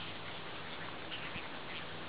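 Ducks quacking faintly in the distance, a few short calls about a second in, over a steady outdoor hiss.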